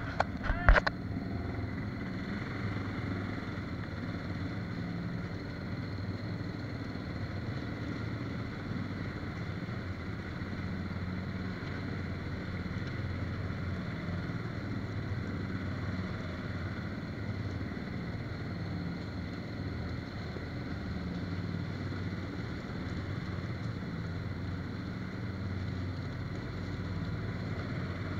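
ATV engine running steadily at low speed inside a rock-walled tunnel, with a couple of sharp knocks just under a second in.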